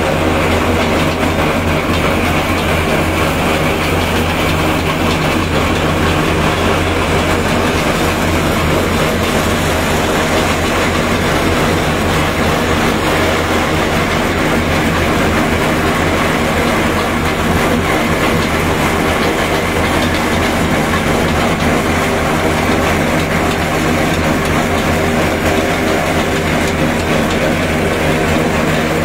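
A tractor-driven groundnut shelling machine (decorticator) running steadily, with the tractor engine's even drone under the machine's constant mechanical noise.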